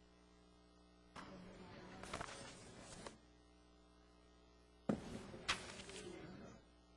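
Quiet room tone with a steady low hum, broken twice by bouts of noise and sharp clicks lasting about two seconds each, the second starting with a sharp knock.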